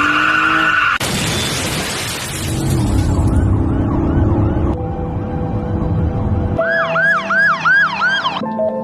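Emergency-vehicle siren in a fast yelp, its pitch sweeping up and down about three times a second and growing louder near the end, over a low rumble. It starts just after a burst of loud rushing noise in the first seconds.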